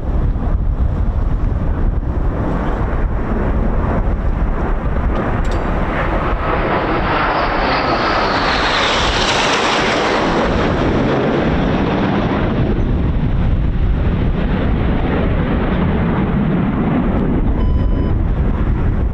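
Red Arrows BAE Hawk T1 jet swelling in as it flies past, its pitch sliding down as it goes by about halfway through, then fading, over heavy wind buffeting on the microphone.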